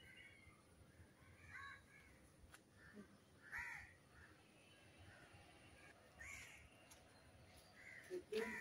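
Faint cawing of crows: several short, separate calls a second or two apart over near silence.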